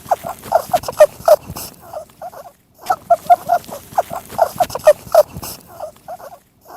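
An animal calling in quick, short, repeated notes, about four or five a second, in two bouts with a brief pause about two and a half seconds in.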